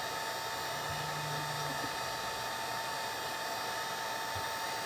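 Wagner paint-removal heat gun running on its low setting, a steady rush of blown air with a thin steady tone through it, blowing hot air onto a laptop circuit board to melt the solder on a jack.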